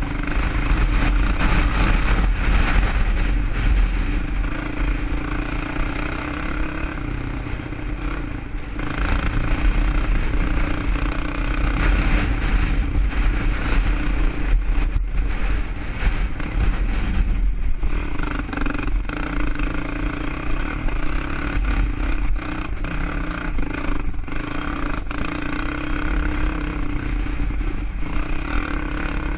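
ATV engine running as the quad is ridden, its level swelling and easing with the throttle, with a low rumble underneath.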